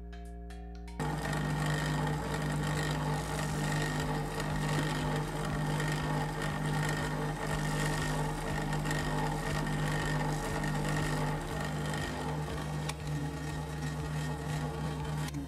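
Drill press running steadily, with a constant motor hum and a wide whir from the spindle. It starts suddenly about a second in.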